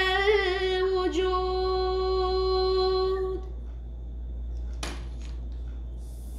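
A boy's voice singing a nasheed without accompaniment, holding one long final note that ends about three and a half seconds in. A single short click follows near the five-second mark.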